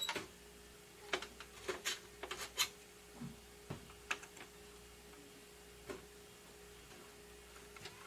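Small, sharp clicks and taps of a gloved hand seating and fastening an M.2 card on a desktop motherboard, scattered and thickest in the first half, over a faint steady hum.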